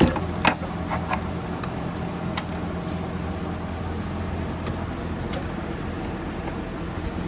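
A metal tool-storage drawer shutting with a sharp knock, then a few light clicks and taps of tools being handled, over a steady low hum.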